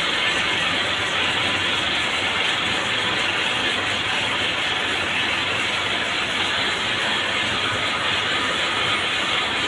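Cord-making machines running at speed: spinning bobbins, belt drives and shafts making a steady, even mechanical hiss and rattle.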